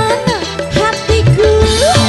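Live band playing a dangdut-style instrumental passage: a melody with sliding, ornamented notes over a steady bass line and drums.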